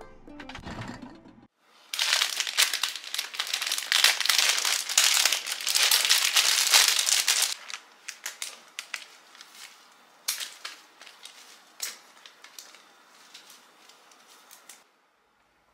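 Wrapping paper around a bunch of cut flowers crinkling loudly for several seconds as it is handled and pulled open. It is followed by scattered sharp snips of kitchen scissors cutting the flower stems.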